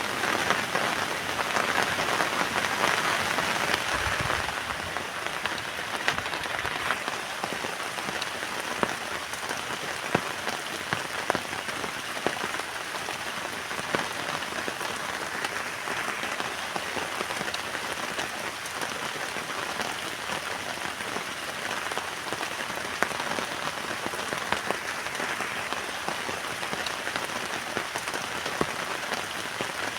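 Heavy rain falling on a tent: a steady hiss dotted with many sharp ticks of single drops. It is heavier for the first few seconds, then eases to an even downpour.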